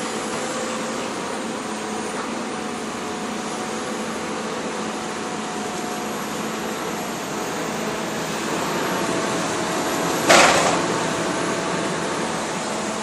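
Excavator's diesel engine running steadily with a faint whine, growing a little louder toward the end. A single sharp metal clank comes about ten seconds in.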